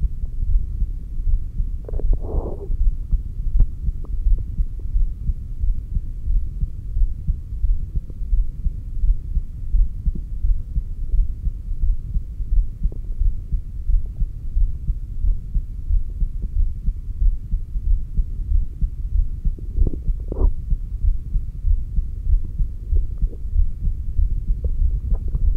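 Heartbeat picked up by a stethoscope on the apex of the heart: a steady, low, rhythmic thumping. Two brief higher-pitched noises break in, one about two seconds in and one about twenty seconds in.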